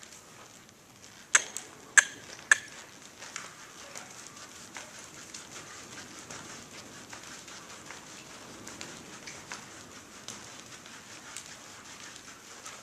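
Young quarter horse jogging on soft arena dirt: faint hoofbeats and tack noise. Three sharp clicks come close together about a second and a half in.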